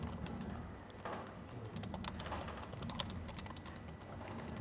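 Typing on a laptop keyboard: an irregular run of quick, light key clicks, over a faint low steady hum.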